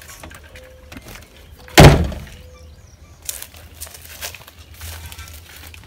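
A single loud thunk a little under two seconds in, then a few lighter clicks and taps.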